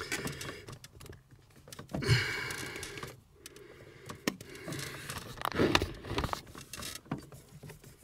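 Handling noise at a car's clutch pedal: irregular clicks, taps and rustles of hands working a ruler against the pedal, with a louder burst about two seconds in and another near six seconds.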